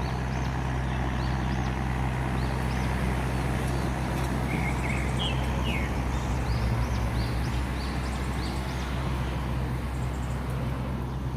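River tugboat's diesel engine running steadily, a low drone under a wash of broad noise. Birds chirp over it in short calls throughout.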